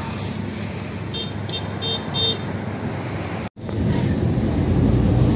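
Steady vehicle and traffic noise with a few short, high beeps about a second or two in; after a sudden cut, the louder low rumble of a van's engine and road noise heard from inside the moving cabin.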